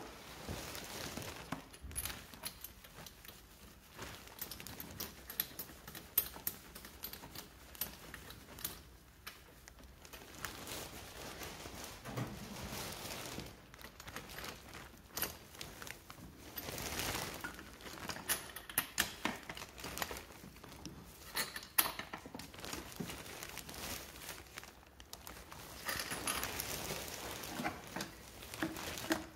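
Plastic sheeting crinkling and irregular small metal clicks and clinks of a spark plug socket wrench as a spark plug is put back into a 125cc scooter engine, busiest past the middle.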